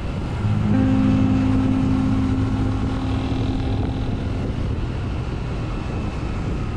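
Honda CBR250RR's parallel-twin engine running steadily under way, with road and wind noise.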